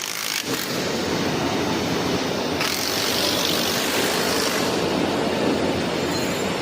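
Steady factory-floor machinery noise in a transformer assembly workshop, with a hiss rising over it for a second or two about three seconds in.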